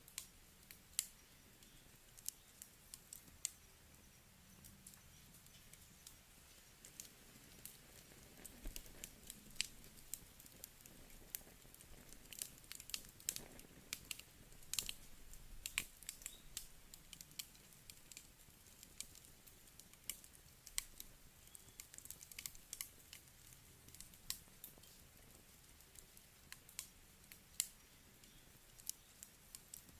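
Wood campfire crackling: irregular sharp pops and snaps of burning wood over a faint steady hiss, busiest around the middle.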